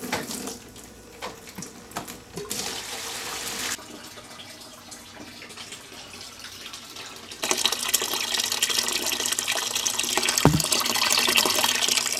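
Water splashing and sloshing in a shallow rubber-lined hydroponic flood table as a hand works in it by the overflow drain, then, about seven seconds in, a louder steady rush of running water.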